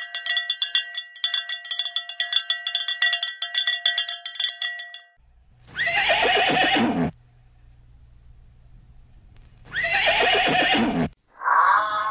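Horse whinnying twice, each whinny about a second long and falling in pitch. Before them comes a few seconds of rapid clicking with a steady ringing tone beneath it.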